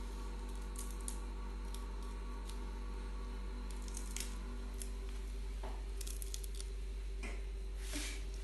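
Leafy saag greens being cut by hand, their stalks giving short crisp snips in small scattered clusters. A steady low hum runs underneath.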